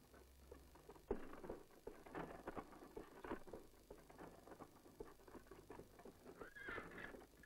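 Horse-drawn covered wagon moving at a walk: an uneven run of soft knocks from the horse's hooves and the wagon, starting about a second in, with a brief squeak near the end.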